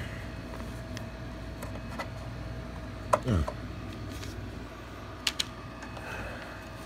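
Light clicks and rattles of wiring and parts being handled inside an air fryer's sheet-metal chassis, with a sharp click followed by a short falling sound about three seconds in.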